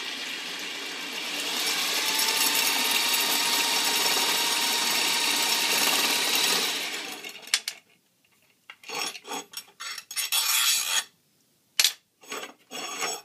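Spool winding rig running: a spool on a threaded rod spinning as copper magnet wire winds onto it, a steady whirr with a faint whine that stops about seven seconds in. Short bursts of rubbing and clatter follow as the rod and spool are handled.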